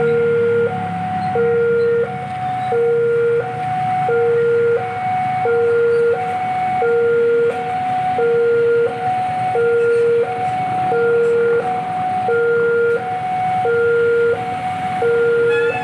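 Railway level-crossing warning alarm sounding as a train approaches: an electronic two-tone signal alternating low and high, each tone lasting about 0.7 s and repeating evenly. A low rumble of engines runs underneath.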